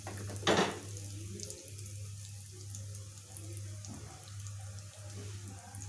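Cumin seeds sizzling in hot mustard oil for a tadka: an even, fairly quiet hiss with fine crackles, and a short louder hiss about half a second in. A steady low hum runs underneath.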